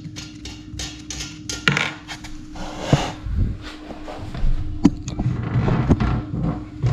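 Irregular clicks, knocks and clatter of a tool and gloved hands working at the fixing bolts of a toilet cistern as it is unbolted, with a few sharper knocks in the second half.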